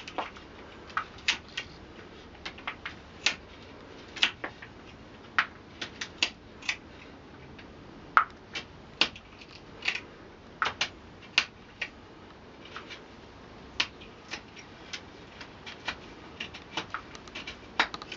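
A small knife whittling the end of a wooden walking stick into a dowel, each cut taking off a shaving with a sharp click. The clicks come at irregular intervals, about one or two a second.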